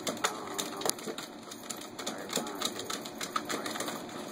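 Shiba Inu puppy scratching and scrabbling inside a wire cage: irregular clicks and rattles, louder about a quarter second and a second in.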